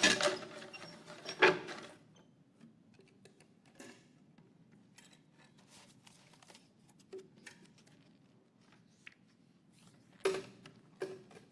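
Wooden lottery drum being handled and its numbers drawn: clattering and knocks, loudest in the first second or so and again about ten seconds in, with faint scattered ticks in between.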